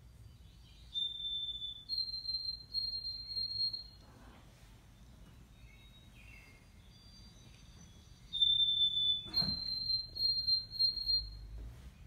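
Bird song: two identical whistled phrases, each a held high note that steps up to a slightly higher, wavering note, with faint short chirps between them. A soft thump comes during the second phrase.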